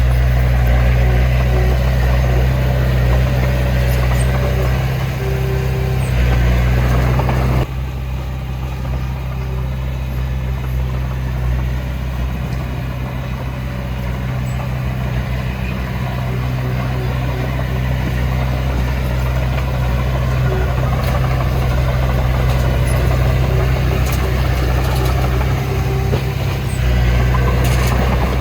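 Diesel engine of heavy earthmoving machinery running steadily with a low, even drone. The sound drops abruptly in level about eight seconds in, then carries on steadily.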